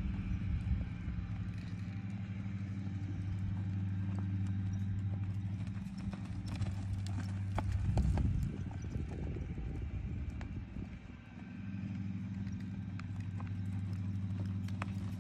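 A horse's hooves loping through soft arena dirt. About eight seconds in comes a louder skidding rush as it plants its hind legs and slides to a stop, and a steady low hum runs underneath.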